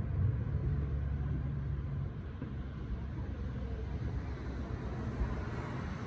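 Low rumble of distant thunder rolling on and slowly fading over the first couple of seconds.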